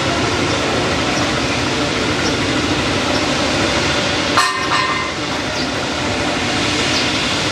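Jet airliner engines running loudly and steadily, with a sharp click about four and a half seconds in.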